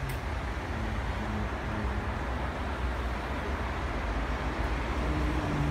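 Steady hum of city road traffic from the streets below, with a low rumble underneath and no firework bangs.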